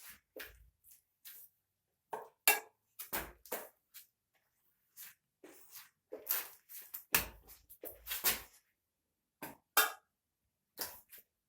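Irregular short swishes and knocks of a glue brush being worked against a wall, about a dozen strokes with pauses between them.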